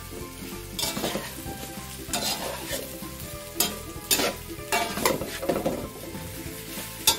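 Chicken pieces sizzling as they fry in a metal wok, stirred with a long-handled metal utensil that scrapes and clanks against the pan in irregular strokes about once a second.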